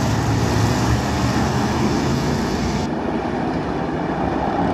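A pack of hobby stock race cars running together, a dense, steady mass of engine noise. The high hiss above it cuts off suddenly about three seconds in.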